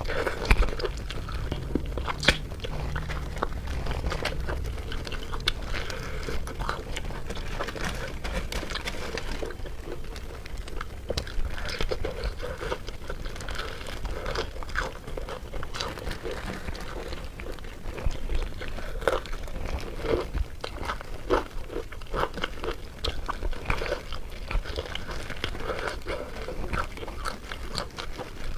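A person biting and chewing crunchy food, with many irregular crisp crunches throughout.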